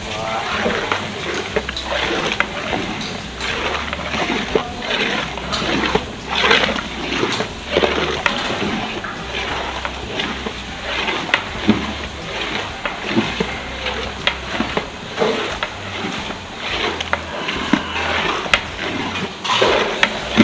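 Liquid sloshing and splashing in a large pot of mutton being cooked, with frequent clicks and knocks throughout. Voices talk in the background.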